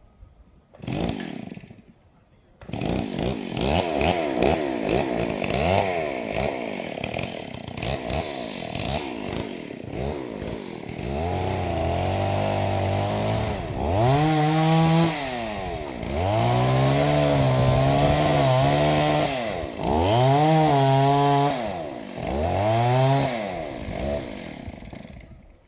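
Two-stroke chainsaw, its chain mounted backwards, catching briefly about a second in and then starting and running. After a stretch of idling it is revved again and again, the engine whine climbing, held high for a second or two, and dropping back, before it shuts off near the end.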